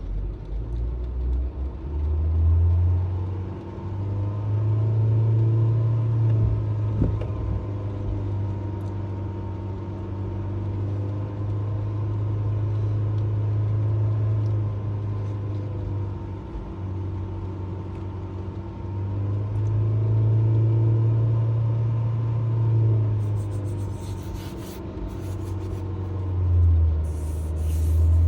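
Honda HR-V four-cylinder engine running and being revved in several slow swells, the engine note rising and falling between stretches of idle. Light clicks can be heard near the end.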